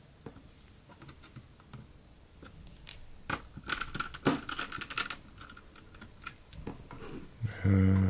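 Small clicks and taps of a screwdriver and tiny screws being worked into the hard drive caddy of an opened laptop, with a cluster of sharper clicks and a brief ringing about halfway through. Near the end a short, loud hummed voice sound.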